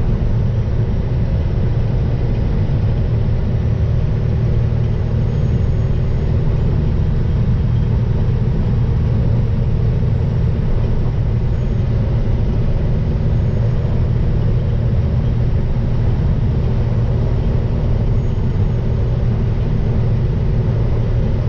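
Steady low rumble of a semi truck's diesel engine and road noise heard from inside the cab at a constant highway cruise.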